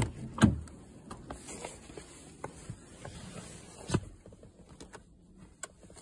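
Car door being opened and someone climbing into the driver's seat: scattered clicks and knocks, with a sharp thump about half a second in and another sharp click about four seconds in.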